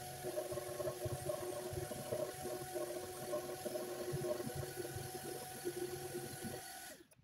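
Electric random orbital sander running against a wooden cabinet top, sanding through an old finish that paint stripper would not lift: a steady hum with uneven low knocks as the pad moves over the wood. The sound cuts off suddenly near the end.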